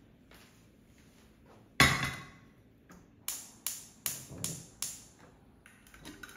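A stainless-steel pressure cooker set down on a gas hob's grate with one loud metallic clank. A few seconds later the burner's spark igniter clicks five times in quick succession, about two and a half clicks a second, as the gas is lit.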